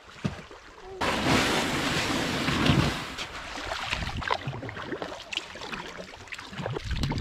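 Kayak being launched and paddled in shallow bay water: a sudden rush of water and hull noise starts about a second in, then uneven splashing and short knocks of paddle strokes.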